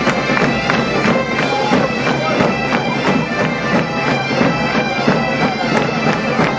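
A massed band of gaitas-de-foles (Iberian bagpipes) playing a tune together over their steady drones, with side drums beating an even rhythm.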